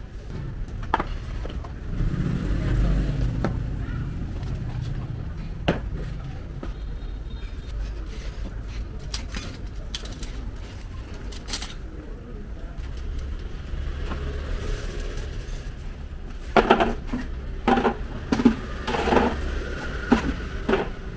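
Street ambience with a low rumble of passing traffic, strongest a couple of seconds in, and scattered sharp clacks as chopsticks, bottles and plastic stools are handled. Voices come in near the end.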